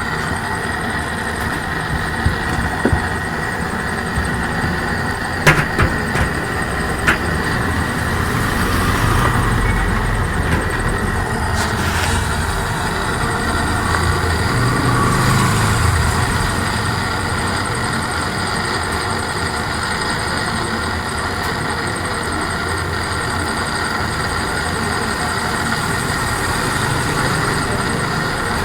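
Gas cutting torch running with a steady roar, heating a front-load washing machine's drum spider to loosen it. A few sharp metal knocks come in the first half.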